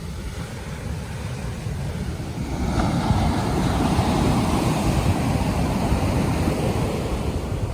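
Surf breaking on a beach: a wave swells into a long wash about three seconds in and slowly eases, over a steady rumble of wind on the microphone.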